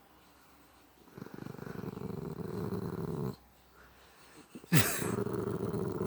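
Pet dog growling in two low, rattling bouts with a pause between them. The second bout starts about two-thirds of the way in with a sudden loud burst.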